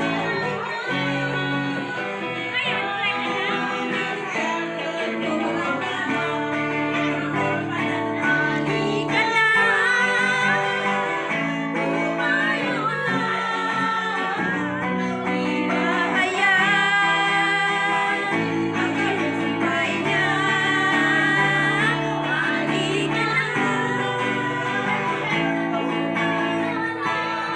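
Two women singing a song together to electric guitar accompaniment.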